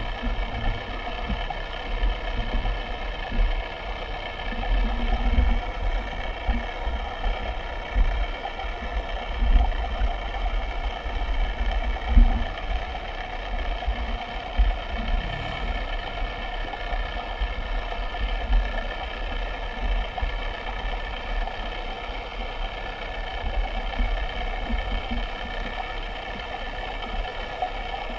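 A small motor running steadily, a constant whine made of several even tones, with irregular low rumbles and bumps underneath.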